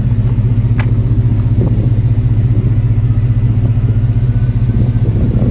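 Chevrolet Tahoe V8 idling steadily, a low, even rumble heard from underneath the truck, with one sharp tick about a second in.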